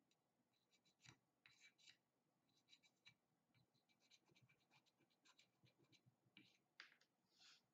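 Fine polishing stone rubbed in quick, short scratchy strokes over the lacquered repair line of a porcelain bowl: sanding the lacquer of a kintsugi repair. The strokes come in short runs with brief pauses, faint throughout.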